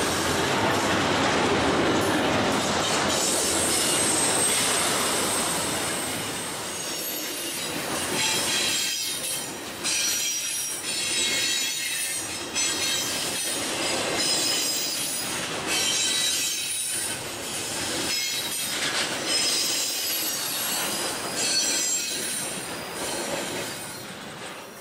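Double-stack intermodal container train rolling past at close range: a steady rumble of well cars, then repeated wheel clacks over the rails with high-pitched wheel squeal through the second half, fading out at the end.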